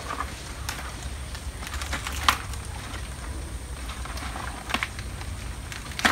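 Coconut palm being picked overhead: stems and dry fronds snapping and crackling in scattered sharp cracks, the loudest about two seconds in and again near the end, over a steady low rumble.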